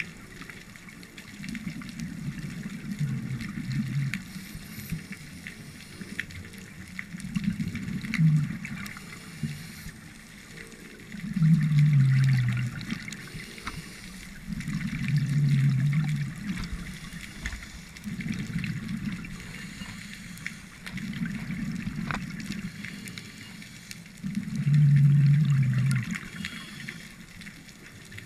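Scuba diver breathing through a regulator underwater: exhaled bubbles rumble low in bursts of one to two seconds, about seven of them, roughly every three to four seconds.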